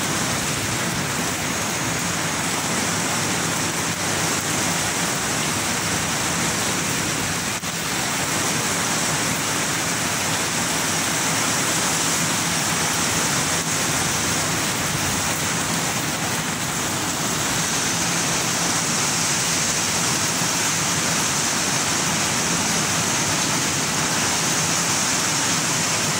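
Heavy rain falling in a steady downpour, a dense, even hiss that does not let up.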